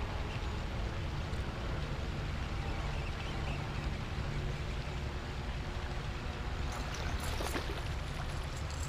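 Steady low outdoor rumble with a faint hum throughout. About seven seconds in, a short hissing burst as a bass hits the lipless crankbait on the retrieve and is hooked.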